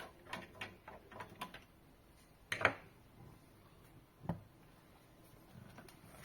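Screwdriver working the screws on the base of a small plastic-cased machine: a quick run of light clicks at first, then two sharper isolated clicks, one about halfway through and one a little later.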